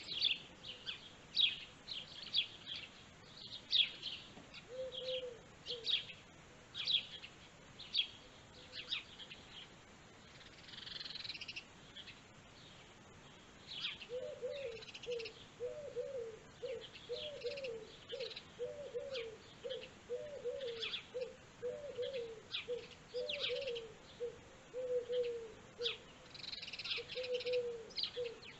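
Birds chirping in short, quick high notes, about two a second, through the first half. About halfway in, a low call starts and repeats about twice a second, each note briefly rising and falling, alongside fewer chirps.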